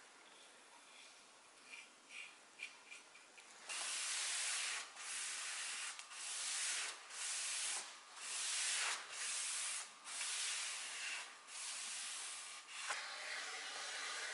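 A cloth pad rubbed back and forth over a stained pine board, about ten hissy scrubbing strokes in a row. It starts a little under four seconds in, after a few faint light scratches.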